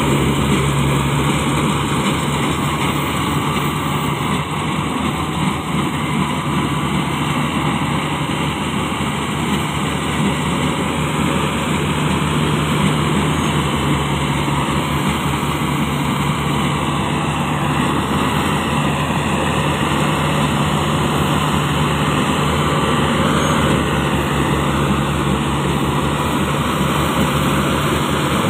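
Yanmar YH700 rice combine harvester running steadily while it cuts standing rice: a constant, loud drone of its diesel engine and threshing machinery.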